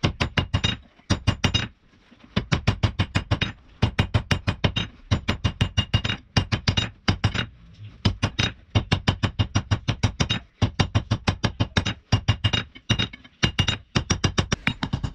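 Rapid hammer blows on a steel forging, about seven a second, with a faint metallic ring between strikes. The blows come in runs broken by short pauses, about 2, 7.5 and 13.5 seconds in.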